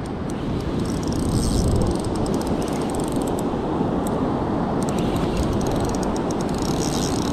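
Steady rush of surf and wind, with short bursts of rapid fine clicking from a spinning reel as a hooked fish is cranked in on a bent surf rod.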